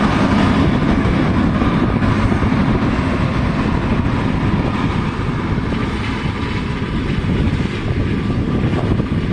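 Massey Ferguson tractor engine running steadily, heavily buffeted by strong wind on the microphone.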